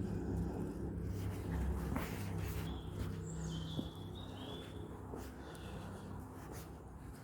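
A wild bird gives a few short whistled notes about three seconds in, with a fainter call a couple of seconds later, over a steady low rumble and scattered footsteps.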